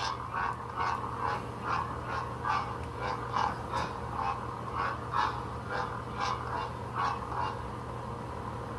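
An animal calling over and over in short calls, about two to three a second, over a steady low hum.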